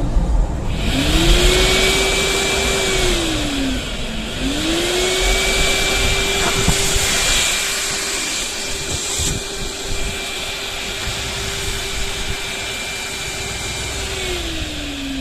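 HiKOKI RP150YD dust extractor motor spinning up with a rising whine over a rush of air, running for about two seconds and winding down. It starts again about four seconds in, runs steadily for about ten seconds, then winds down near the end.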